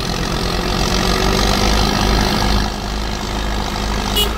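Kubota tractor's diesel engine running steadily, growing louder about a second in and easing slightly near the end.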